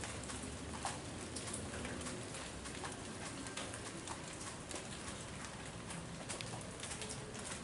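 Steady rain falling in a garden, with scattered sharp drips and patters, while a bird coos in short low notes.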